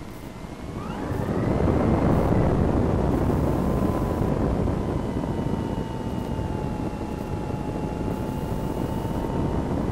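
Multiplex Cularis RC glider's electric motor and propeller spinning up about a second in, a whine that rises in pitch and then holds steady, over wind rushing past the on-board microphone.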